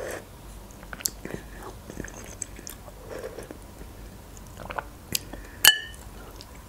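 Close-miked eating of borscht: soft chewing and wet mouth sounds, with small clicks. About five and a half seconds in, a metal spoon clinks sharply against the glass bowl with a brief ring, the loudest sound here.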